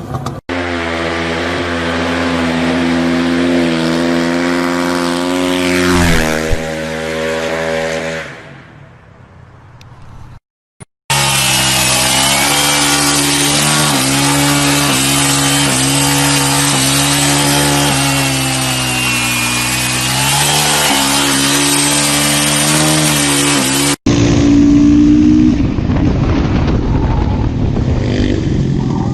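Motorcycle engines running at high, fairly steady revs in several short clips, with a chainsaw-like sound. The first fades away about eight seconds in. The next wavers up and down in pitch as the throttle changes.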